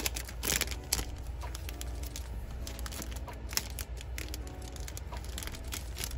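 Clear plastic cellophane packet crinkling and crackling as hands pull it open, with a sharp crackle at the start and another about a second in.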